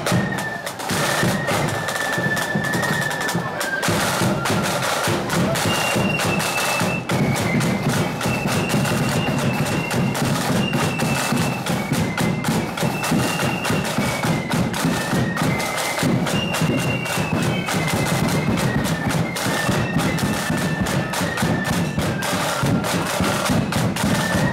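Marching flute band playing a tune while on the march. Flutes carry the melody over quick, rattling snare-drum beats and a bass drum.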